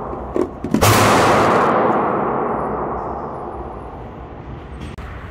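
A single loud gunshot about a second in, echoing in the indoor range and dying away over the next couple of seconds. It follows the fading echo of an earlier shot, with two light clicks just before it.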